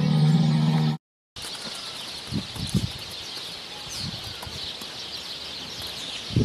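A dense chorus of small birds chirping, with a few low thumps in the middle and at the end. It follows a loud, low held sound in the first second that cuts off abruptly.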